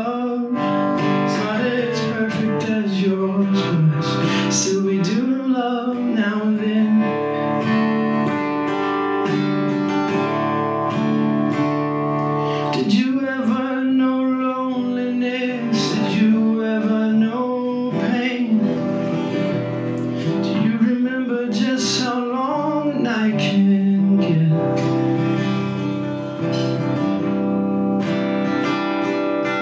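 Singing with a strummed acoustic guitar accompaniment, sung steadily throughout.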